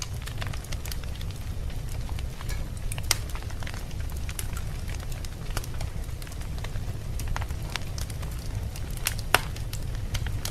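Wood fire crackling in a fireplace: a steady low rumble of flames under scattered sharp pops and snaps, the loudest about three seconds in and again near the end.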